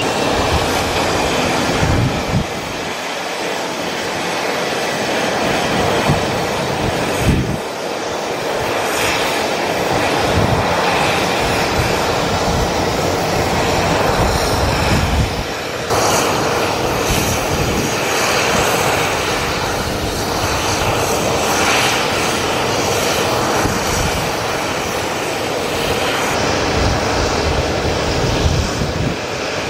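Rear-mounted turbofan engines of a twin-jet business jet running loud as it taxis on the runway, a steady rush of engine noise. The sound changes abruptly about halfway through.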